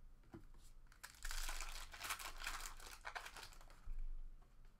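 Foil trading-card pack wrappers crinkling and rustling as they are handled, loudest from about a second in for a second and a half, then lighter rustles and a soft knock near the end.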